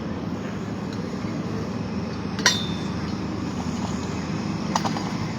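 Steady low engine rumble of heavy machinery, with a single sharp metallic clank about halfway through and a lighter clink near the end.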